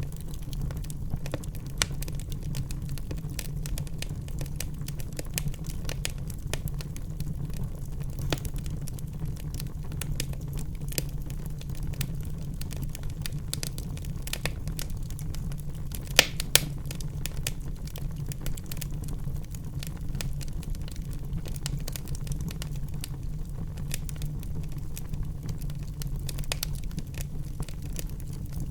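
Wood fire in a fireplace crackling: a steady low rumble of burning with irregular sharp snaps and pops of the burning wood, the loudest a pair of snaps about halfway through.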